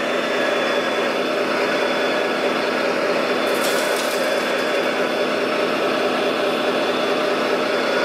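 Radio-controlled wheel loader running with a steady mechanical hum as it raises its bucket. About three and a half seconds in, a short rattle of gravel pouring from the bucket into a model dump truck's bed.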